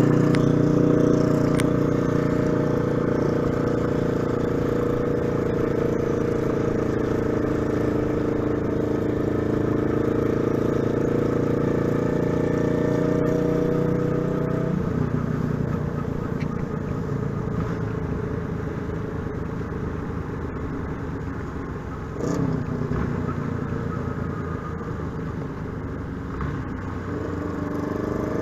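Motorcycle engine running steadily at cruising speed; about halfway through the note drops as the throttle is eased off, and it climbs again near the end as the bike accelerates.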